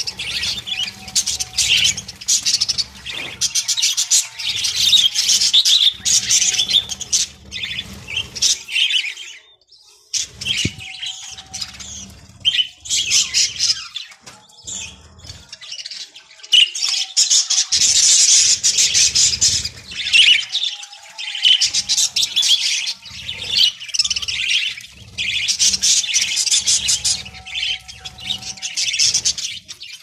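A flock of budgerigars chattering and chirping continuously, with a short lull about nine to ten seconds in.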